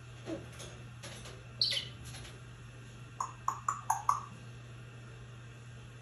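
African grey parrot whistling and chirping: a high falling whistle about a second and a half in, then a quick run of five short chirps a little past the middle.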